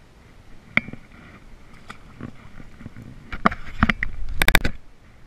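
Handling noise from a hand against the camera: a few scattered knocks, then a quick run of loud bumps and scrapes about four and a half seconds in.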